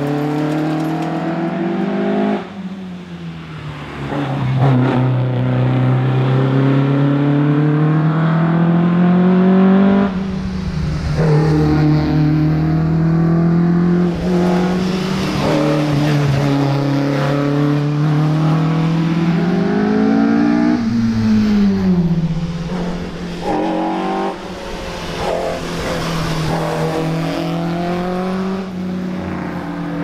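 Ford Escort Mk1 rally car's engine under hard acceleration, its note climbing steadily and then dropping sharply at each gear change, about three times.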